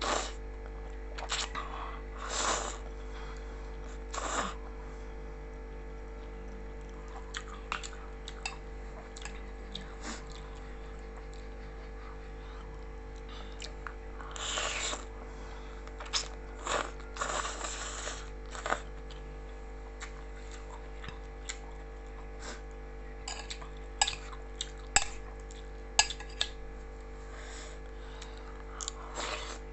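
Black noodles being slurped and chewed, with short noisy slurps near the start and in the middle, and sharp clicks of cutlery against a bowl later on. A steady hum runs underneath.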